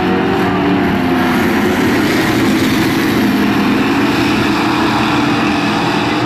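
A pack of Amcar dirt-track race cars racing past at full throttle, their V8 engines overlapping in a loud, steady din.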